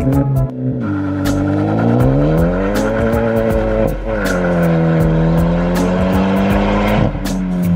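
Tuned Hyundai Genesis Coupe accelerating hard from a standstill: the engine note climbs steeply, drops sharply at a gear shift about four seconds in, pulls again, and falls once more about seven seconds in.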